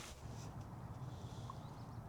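Faint outdoor background: a low, steady rumble with a tiny brief blip about a second and a half in.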